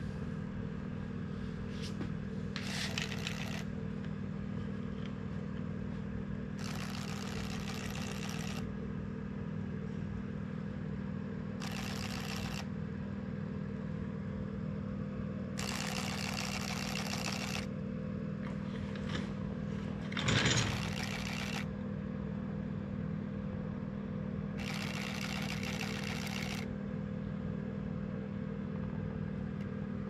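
A prototype cicada fishing lure's small coreless DC motor spinning its two wing blades in the water in repeated bursts of a second or two, several seconds apart, each one splashing and churning the surface. The burst about two-thirds of the way through is the loudest and begins with a knock. A steady low hum runs underneath.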